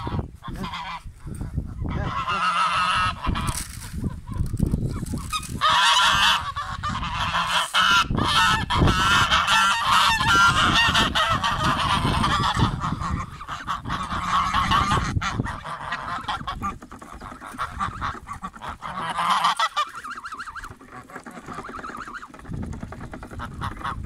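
A flock of domestic geese honking, many calls overlapping, thick through most of the stretch and thinning out in the last few seconds.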